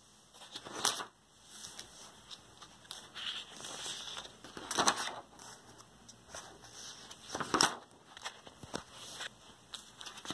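Pages of a spiral-bound paper sketchbook being turned and handled: paper rustling, with three louder page flips, about a second in, near the middle and later on.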